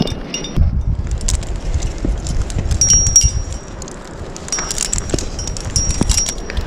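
Metal climbing gear on a harness, carabiners and protection, clinking and jingling in short bursts as the climber moves on the rock, over a low rumble of wind on the microphone.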